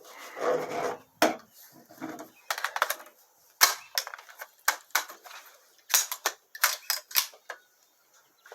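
Irregular sharp clicks and clacks of an AR-15-pattern rifle and its parts being handled, after a brief rustle at the start.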